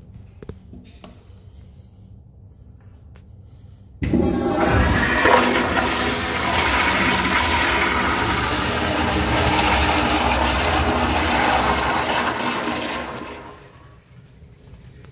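A commercial restroom toilet flushing. A loud rush of water starts suddenly about four seconds in, runs strongly for about nine seconds, then dies away near the end as the bowl drains.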